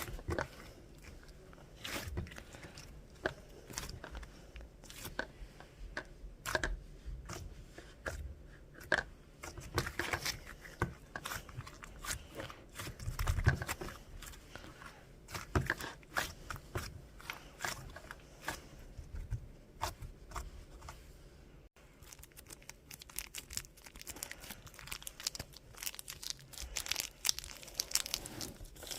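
Hands kneading, stretching and pulling apart clay slime: irregular sticky crackles and small pops coming in quick runs with short pauses.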